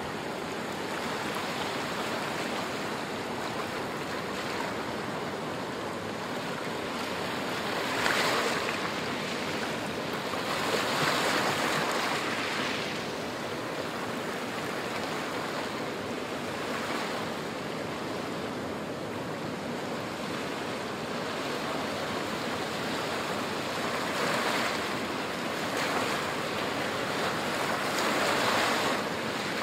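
Small sea waves breaking and washing up over a sandy, rocky shore: a steady hiss of surf, with louder surges every few seconds as each wave rushes in.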